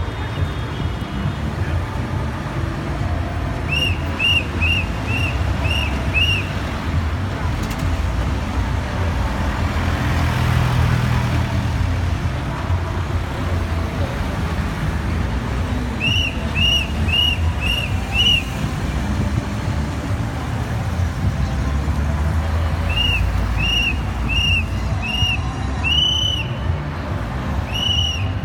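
Traffic officer's whistle blown in runs of five or six short, quick blasts, several times over, against the steady rumble of cars and vans crossing the intersection.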